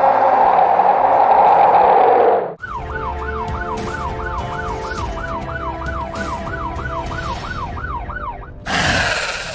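A loud rushing noise cuts off abruptly, and an emergency-vehicle siren in a fast yelp follows, sweeping up and down about three times a second.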